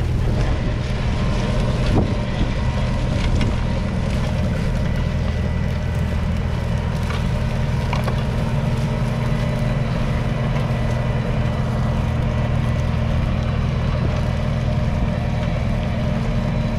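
Kubota M7-153 tractor's 6.1-litre four-cylinder diesel engine running at a steady speed.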